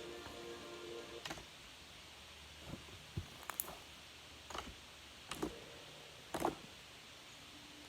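Slime being squeezed and pressed, giving off irregular sharp clicks and small pops, about seven spread over several seconds.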